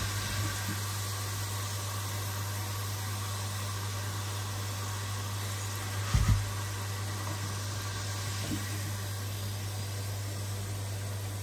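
Cheese doughnut balls deep-frying in a pot of oil: a steady sizzling hiss over a low steady hum, with one knock about six seconds in.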